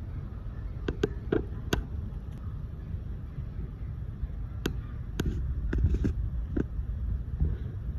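Gravel pebbles clicking and crunching as Pomeranian puppies paw and chew at the stones: scattered sharp clicks, a cluster about a second in and another between about four and a half and six and a half seconds, over a steady low wind rumble on the microphone.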